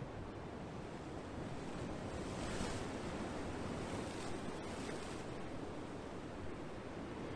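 Ocean waves washing ashore: a steady rush of surf, with one wave breaking into a brighter hiss about two and a half seconds in that fades out about five seconds in.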